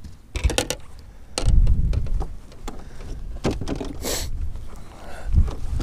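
Clicks and knocks of fishing rods and gear being handled and a person moving about a bass boat, with a brief rustle about four seconds in and wind rumbling on the microphone.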